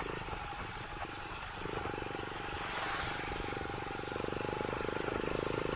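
Motorcycle engine running as it is ridden slowly over a rough, muddy road, with wind noise. The engine eases off for about a second and a half, then picks up again.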